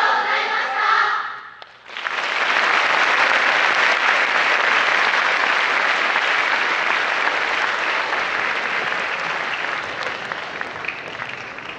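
A wind band's brass and saxophones hold a final chord that cuts off sharply about two seconds in. An audience then applauds steadily, slowly dying down toward the end.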